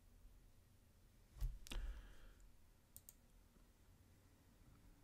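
Computer mouse clicks: a louder pair of clicks with a dull knock about a second and a half in, then two faint ticks about a second later.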